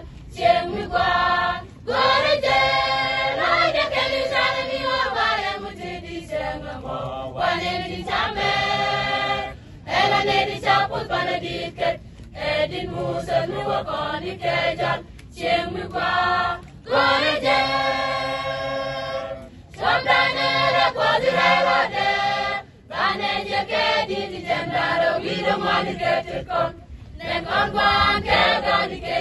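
Mixed choir of women and men singing together, in short phrases broken by brief pauses.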